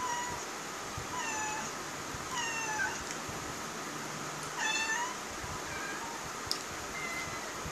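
A domestic cat meowing repeatedly: about six short meows spaced roughly a second apart, the loudest about two-thirds of the way through. A single sharp click comes about six and a half seconds in.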